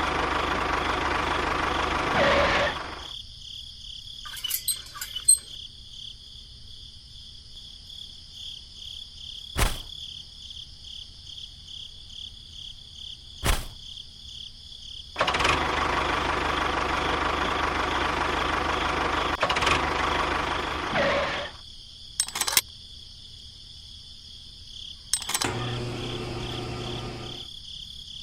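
A small motor running in two stretches that start and stop abruptly, the longer lasting about six seconds, with a few sharp clicks in between and a quieter hum near the end. A faint, steady, high-pitched insect drone runs underneath.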